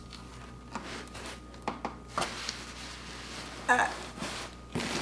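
Faint rustling and light clicks of packaging and items being handled while unboxing, with one short pitched sound a little before four seconds in.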